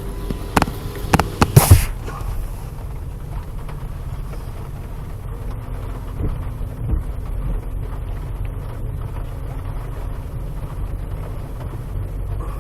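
V8 Nissan Pathfinder's engine and drivetrain running as the truck moves over the trail, a steady low rumble, with a faint steady hum joining about five seconds in. A quick series of sharp knocks comes in the first two seconds.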